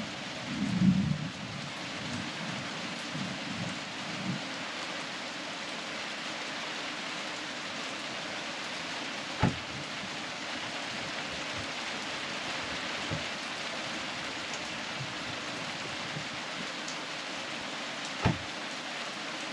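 Steady rain hiss. Over it come a few low bumps in the first few seconds, the loudest about a second in, then two sharp knocks, one about halfway through and one near the end.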